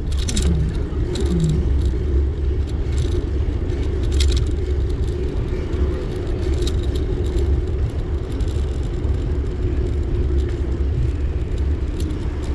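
A vehicle running with a steady low rumble and a constant hum, with light rattles and clicks throughout.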